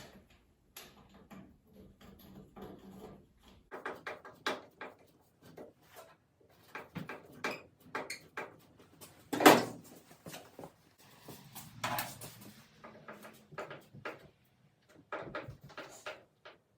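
Irregular clicks, knocks and clatter of hand tools and metal parts being handled, with one sharp, louder knock about nine and a half seconds in and another near twelve seconds.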